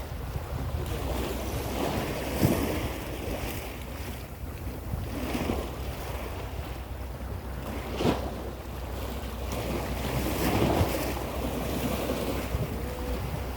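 Sea waves washing and splashing steadily, with wind buffeting the microphone. Two brief louder splashes or knocks stand out, about two and a half seconds in and again about eight seconds in.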